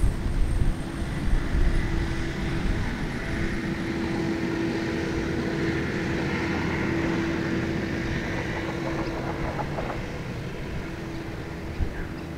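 A steady engine-like hum swells and fades through the middle, over low wind rumble on the microphone.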